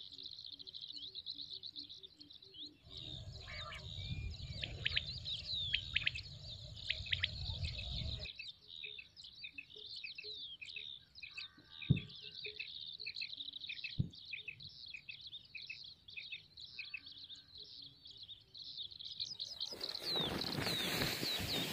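Many small birds chirping at once, a dense stream of high chirps throughout. A low rumbling noise from about three to eight seconds in, two sharp clicks later on, and a burst of hissing noise near the end.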